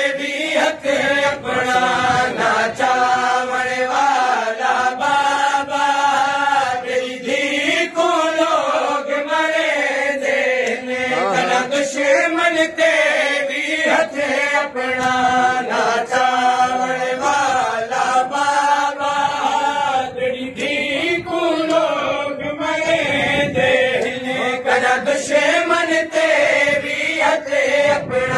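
Men chanting a noha, a Shia lament, in unison in repeated sung phrases, with a steady beat of chest-slapping (matam) keeping time.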